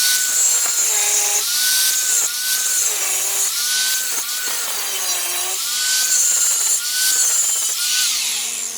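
Handheld electric grinder cutting the riveted head off a steel door-hinge pin, grinding continuously with a harsh hiss. Its whine dips and recovers several times as it bears on the metal, then it winds down near the end.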